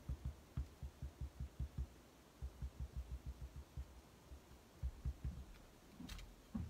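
A stamp tapped again and again on an ink pad to ink it: soft, quick thumps, about four or five a second, in several short runs, with a sharper click near the end.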